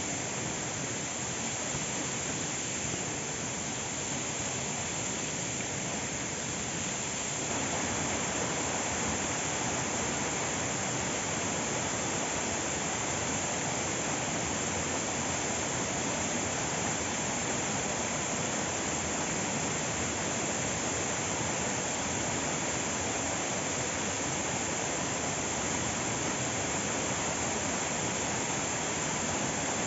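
Waterfall: a steady rush of falling water that gets a little louder about seven and a half seconds in.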